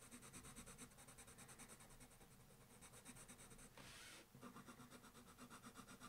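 Faint scratching of a colored pencil shading lightly back and forth on paper, with a brief soft hiss about four seconds in.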